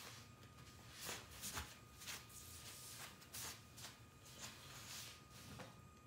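A cloth wiping a sheet of picture-frame glass: faint, irregular swishing strokes, several in a row.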